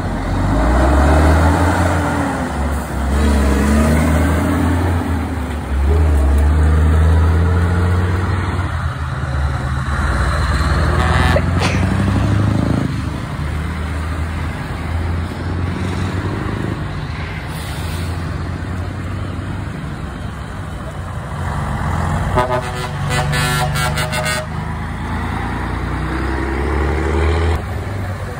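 Heavy truck diesel engines running as tractor units pull away past the camera, loudest in the first few seconds. About 23 seconds in, a truck horn sounds in a quick run of short blasts lasting about two seconds.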